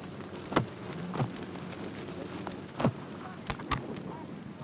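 About five short knocks and clicks at uneven intervals over a steady low hum. The hum is typical of an old film soundtrack.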